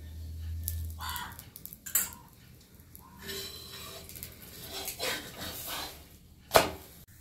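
Flat metal spatula scraping and tapping against an iron tawa as a puffed puran poli is pressed and turned, with a sharp clink of metal on iron near the end.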